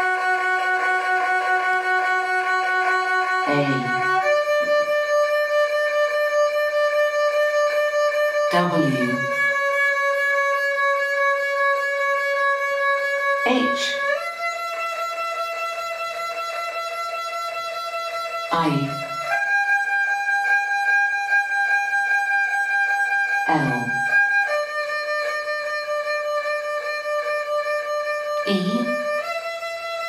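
Erhu music: long held notes with several pitches sounding together, shifting to new notes about every five seconds. Each shift is marked by a quick downward swooping glide.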